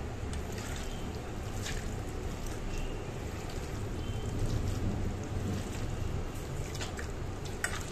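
Raw chicken strips being squeezed and turned by hand in a marinade in a steel bowl, with a few soft wet squelches over a steady low rumble.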